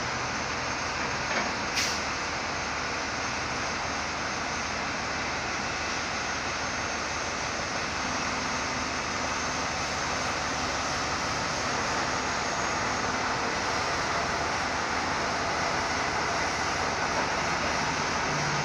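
Diesel engine of an XCMG QY25K mobile truck crane running steadily at idle, with one short click about two seconds in.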